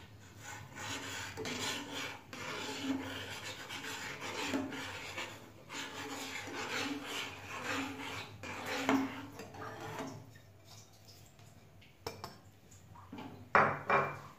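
Metal spatula scraping along the bottom of a pan of boiling milk as crushed biscuit is stirred in, in repeated strokes about once a second. The scraping eases off about two-thirds through, with a couple of sharp knocks near the end.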